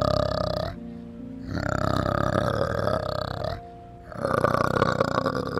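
Adult male orangutan calling, three deep, pulsing calls with short pauses between, over soft background music.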